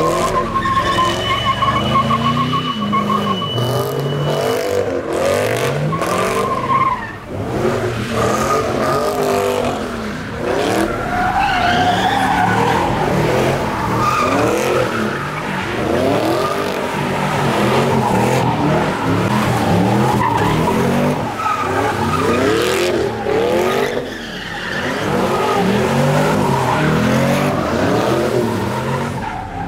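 Cars spinning donuts and doing burnouts. Their engines rev up and down over and over while the tyres squeal and skid on the pavement.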